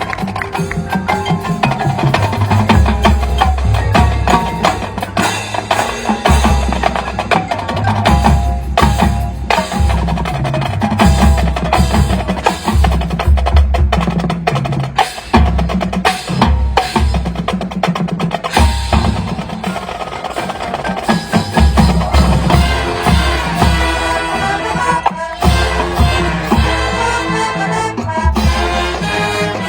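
High school marching band playing: the field drumline of snare and bass drums drives a dense rhythm, with pit percussion on mallet keyboards and chimes, under sustained brass and woodwind notes.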